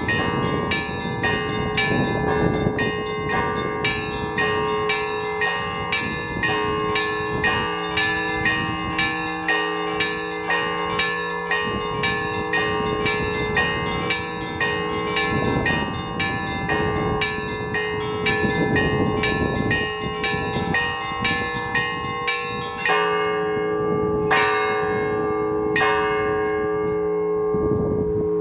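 Russian Orthodox church bells ringing a peal (zvon): small bells struck in a quick rhythm, about two strikes a second, over deeper bells that keep ringing. Near the end the quick strikes stop, leaving a few single strokes and the hum of the large bells. Strong gusts of wind rumble on the microphone now and then.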